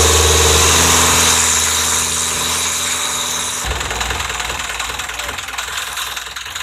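Boat engine running steadily under way, with a loud hiss of water spray and wind. About three and a half seconds in it cuts to a quieter rush of water and wind with the engine drone gone.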